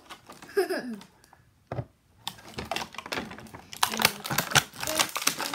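Clear plastic toy packaging crinkling and clicking in quick, irregular clicks as it is handled, with a quiet pause of about a second early on, then denser clicking. A few brief vocal sounds near the start.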